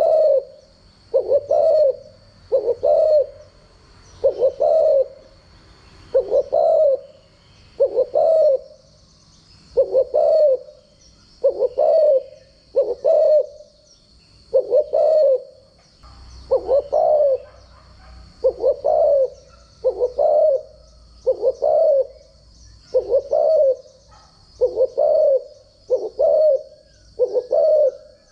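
Spotted dove cooing over and over: a steady series of deep coos, roughly one a second, some in close pairs.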